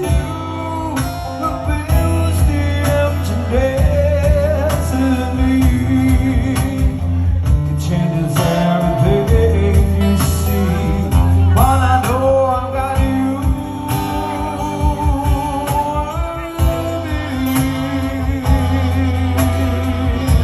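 Live acoustic band music: guitar over a steady bass and beat, with a melody line that bends in pitch at a few points, carrying the song on after the last sung words.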